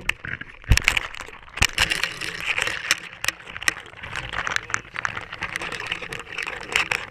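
Water sloshing around a GoPro's waterproof housing at the sea surface, with many irregular sharp clicks and knocks over a rough hiss.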